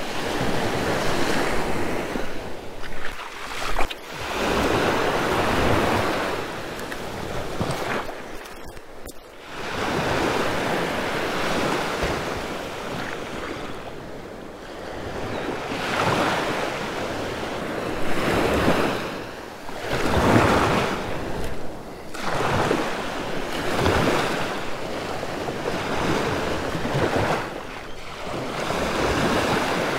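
Small waves breaking and washing up on a sandy beach. The surf swells and falls away every few seconds.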